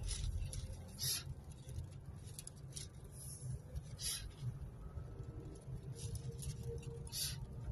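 Low rumble inside a car's cabin as it drives slowly. Short scratchy clicks and ticks come over it, the sharpest about a second in, around four seconds and about seven seconds in.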